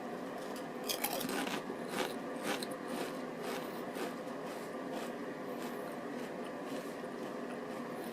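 Crunching and chewing a mouthful of ruffled potato chips: a quick run of sharp crunches in the first half, thinning to sparser, quieter chewing later.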